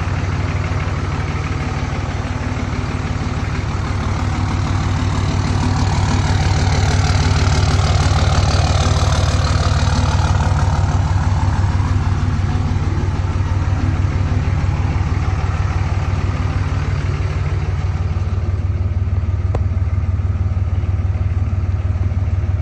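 Dodge 5.9 Cummins inline-six turbodiesel idling steadily, growing somewhat louder and hissier for a few seconds about a quarter of the way through.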